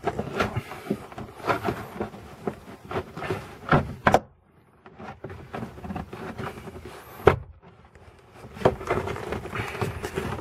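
Irregular clicks and knocks of hands working on a car's interior trim and wiring, with sharper single clicks a little before and just after four seconds in and again a little after seven seconds.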